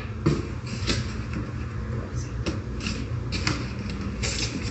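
Cardboard box and foam packing blocks being handled: a scattered series of short scrapes, taps and creaks over a steady low hum.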